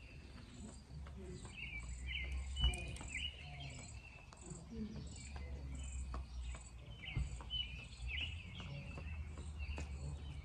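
An insect chirping in an even, high rhythm, nearly two chirps a second, with birds calling and a low rumble underneath.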